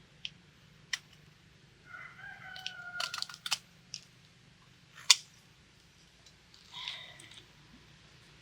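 A rooster crowing once, a drawn-out call about two seconds in, followed by a shorter call near the end, among scattered sharp clicks and knocks, the loudest about five seconds in.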